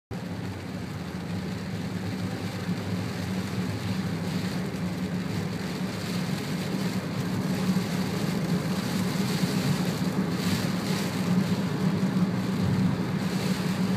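Inside a moving car on a wet road in rain: a steady low engine and road hum with the hiss of tyres on wet tarmac and rain on the car, growing slightly louder towards the end.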